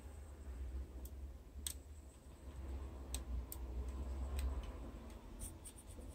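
A few sharp clicks at irregular intervals, with a small cluster near the end, over a steady low hum.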